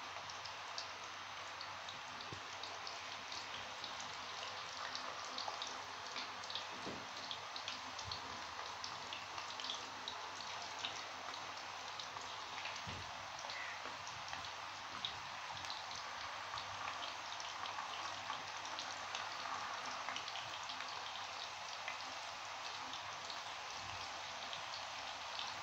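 Thin raw potato slices deep-frying in hot oil: a steady sizzle with a dense patter of small crackling pops.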